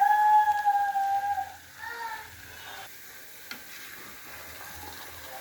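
Pot of beans and plantain cooking on the fire with a steady sizzling hiss. It opens with a loud, long, held high note lasting about a second and a half, and a shorter one at about two seconds, like a voice calling out.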